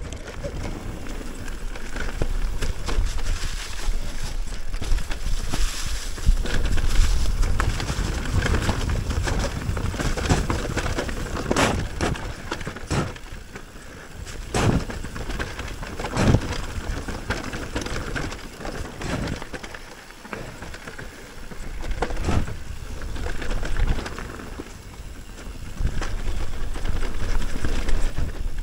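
Mountain bike riding down a rough, leaf-covered trail: a steady rumble of wind and tyre noise, with the bike knocking sharply several times over rough ground around the middle.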